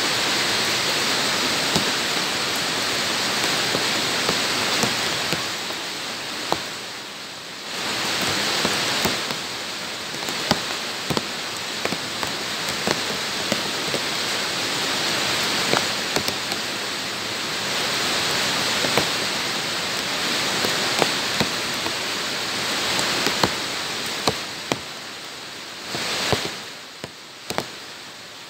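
Heavy rain falling on hard bare ground: a steady hiss with frequent sharp taps of single drops landing close by. The hiss eases briefly twice, about a quarter of the way in and near the end.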